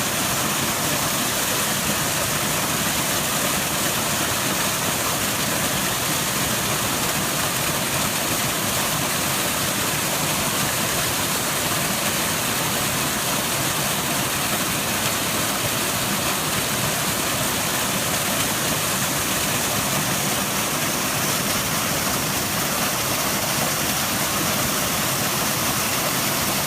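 Small mountain waterfall: water falling and splashing onto rocks as an even, steady rush.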